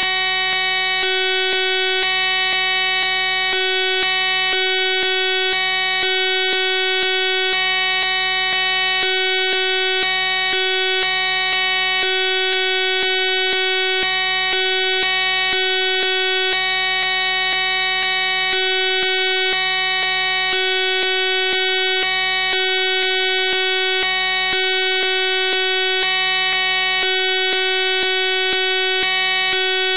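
Loud, unbroken electronic buzz of many steady tones held together, its lowest part cutting in and out in short irregular blocks: a digital glitch in the sound track rather than any real-world source.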